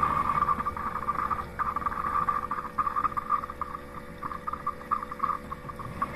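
Motorised whine from a Roomba Max 705 Combo robot and AutoWash dock at work, steady at first, then breaking into rapid, irregular stutters from about a second and a half in, over a low steady hum.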